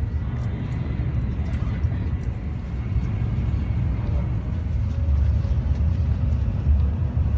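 Interior running noise of an N700-series Shinkansen: a steady low rumble heard inside the passenger carriage.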